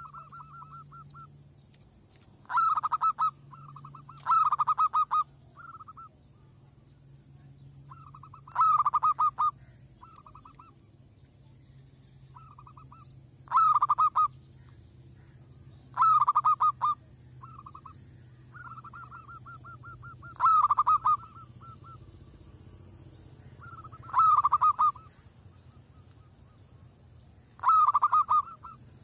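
Zebra dove (merbok) cooing: eight loud staccato trilled phrases, each about half a second to a second long, come every two to four seconds, with softer short trills between them.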